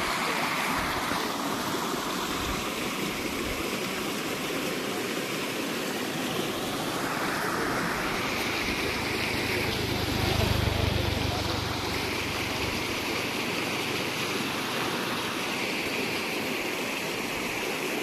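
Shallow stream rushing and splashing over rocks: a steady, even rush of water, with a brief low rumble about halfway through.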